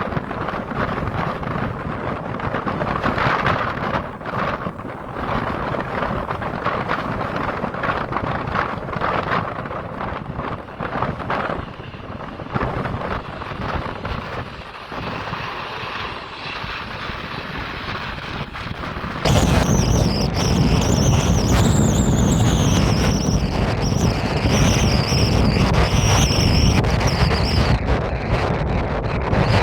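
Gusty wind buffeting the microphone, then about two-thirds of the way through a sudden change to a louder, steady jet rumble with a high wavering whine from an Airbus A350-900's Rolls-Royce Trent XWB turbofans.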